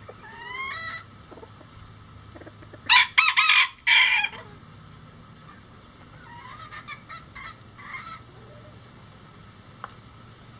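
Bantam rooster crowing once, loud and high, about three seconds in, after a short rising call near the start; softer chicken calls follow around six to eight seconds in.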